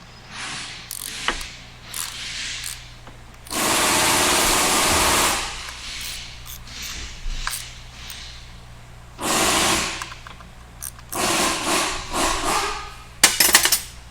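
Handheld power tool run in four bursts of one to two seconds, the longest near the middle, with sharp clicks and knocks of tools and metal parts between and near the end.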